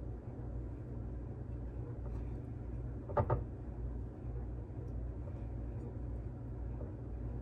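Hands dredging chicken tenders through egg wash and crumb breading, soft handling and rustling over a steady low hum, with a short knock about three seconds in.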